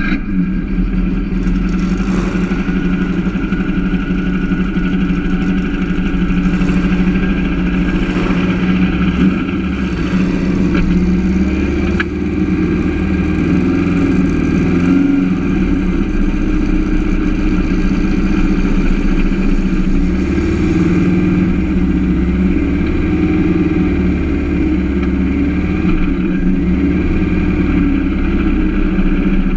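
A turbocharged 2332 cc VW Beetle engine, an air-cooled flat-four, running steadily at idle, heard close up from a camera mounted on the car.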